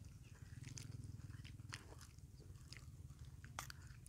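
Faint, scattered crunches and clicks of sliced red onion pieces being washed and handled in a clay bowl, over a low steady hum.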